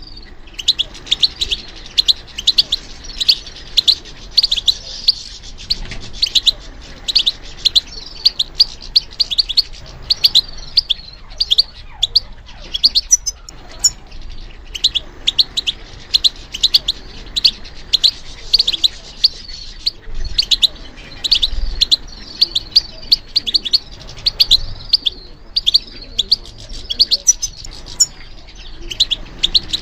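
European goldfinch singing: a long run of rapid, high twittering notes, several a second, broken only by brief pauses.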